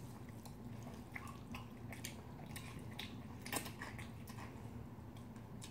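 Faint mouth sounds of eating: chewing and slurping spicy cold noodles, with scattered small wet clicks and one brighter slurp a little past halfway.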